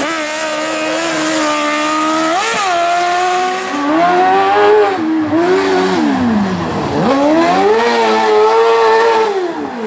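Motorcycle-engined kart-cross buggy running hard at high revs, the engine note dipping and climbing with throttle and gear changes. The revs fall away to a low point about seven seconds in, then climb back high and drop again near the end.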